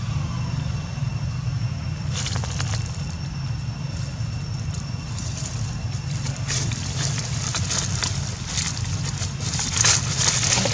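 Dry leaves rustling and crackling as monkeys move through the leaf litter, thickening in the second half, over a steady low rumble.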